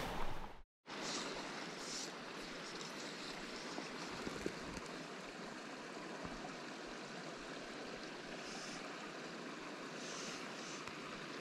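Steady rushing of flowing creek water, with a few faint soft rustles as fly line is handled.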